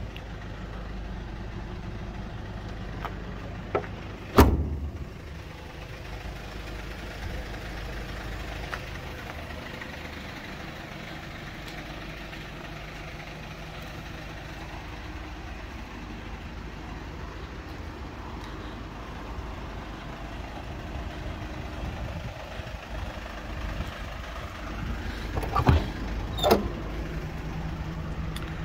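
A steady low mechanical hum from the Sprinter ice-cream van. About four seconds in, a freezer compartment door shuts with a loud thud, and near the end the compartment latch and door knock twice as a door is opened.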